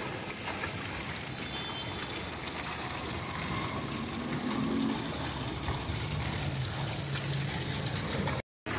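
Water pouring in steady streams from upturned large plastic water-dispenser bottles into a big stainless steel drum, splashing into the water collecting at the bottom. The sound drops out for a moment near the end.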